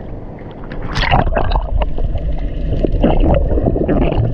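Seawater gurgling and splashing around an action camera as it dips under the surface about a second in, then a muffled underwater rumble with scattered bubbly clicks.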